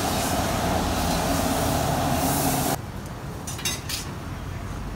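Commercial gas wok burner running at full blast, a loud steady rushing noise. It drops abruptly about three seconds in to a quieter steady noise with a few light metallic clinks.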